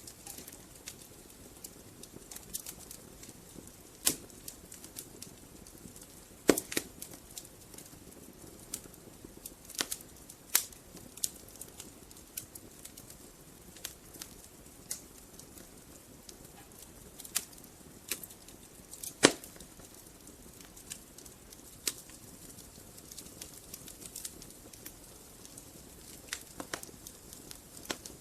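Wood fire burning in a fireplace: a steady low hiss with irregular sharp crackles and a few louder pops from the logs.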